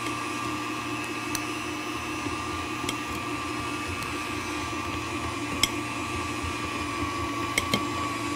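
325-watt KitchenAid tilt-head stand mixer running steadily at an even pitch, whipping Italian meringue buttercream while soft butter is added. A few faint clicks sound over the motor.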